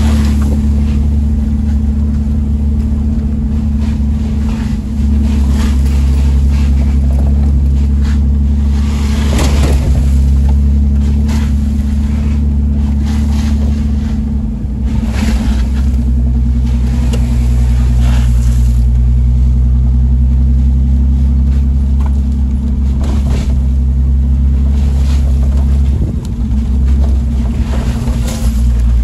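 A vehicle's engine and drivetrain are heard from inside the cab as a steady low drone while the vehicle drives over a wet dirt road. Every few seconds, at irregular times, there is a short rushing swish as the tyres hit puddles and wet mud.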